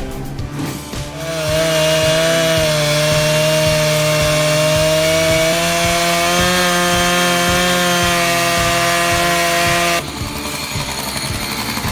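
Chainsaw running at high revs while cutting wood, its pitch wavering slightly under load. It starts about a second in and cuts off abruptly near the end.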